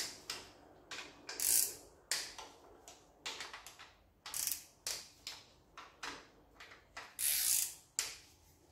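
Hand ratchet clicking in short runs of strokes, a dozen or so, with a few longer runs, as pedestal-mount rocker-arm bolts are loosened on an engine's cylinder head.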